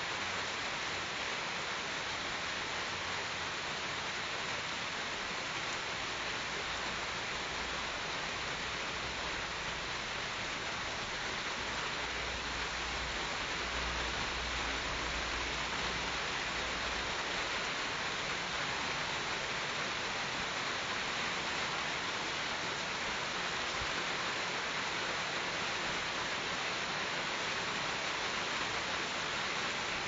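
Light rain falling on tree leaves and palm fronds: a steady, even hiss.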